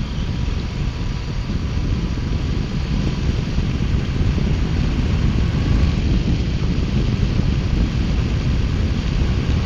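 2018 Triumph Bonneville T120's 1200 cc parallel-twin engine and exhaust running steadily at a highway cruise of around 60 mph, mixed with wind rush.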